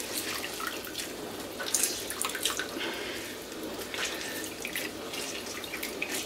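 Orange juice dripping and splashing into a pot of brine as an orange half is squeezed by hand, in irregular drips and small splashes.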